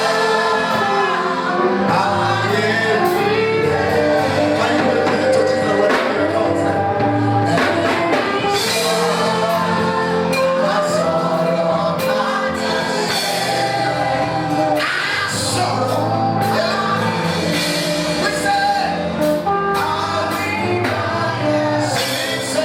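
Live gospel music: singing with a choir, over a band with sustained bass notes and percussion.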